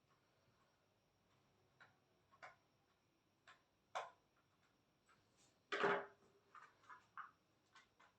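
Screwdriver clicking and scraping in the screw head of an electric mosquito racket's casing while a stiff screw is worked loose: a few scattered faint ticks, then a louder cluster of clicks in the last couple of seconds.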